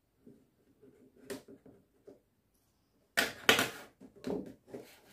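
Faint clicks of scissors cutting at a cardboard toy box, then from about three seconds in louder rustling and scraping as the cardboard box is handled and its top pulled open.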